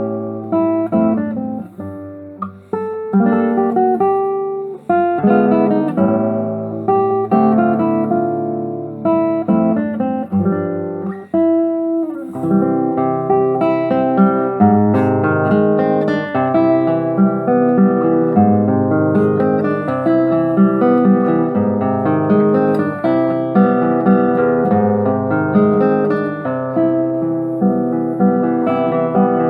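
Acoustic guitar playing plucked notes and chords, at first in separate phrases with short breaks. A little before halfway it moves into a denser, unbroken run of notes.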